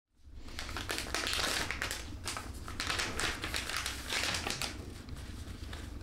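Crinkly packaging being handled and crumpled by hand, in uneven rustling bursts about a second apart, over a low steady room hum.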